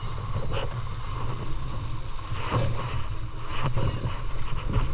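Motor boat under way: steady low engine rumble, with wind buffeting the microphone.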